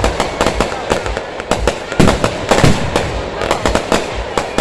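Fireworks display going off: a rapid, continuous series of bangs and crackling reports, loudest about two seconds in.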